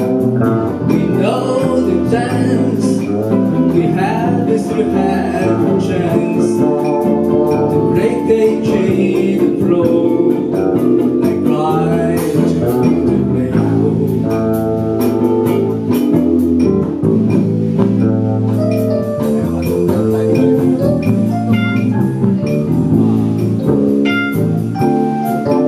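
Small jazz band playing live: hollow-body electric archtop guitar, electric bass and saxophone carrying a melody line over the chords.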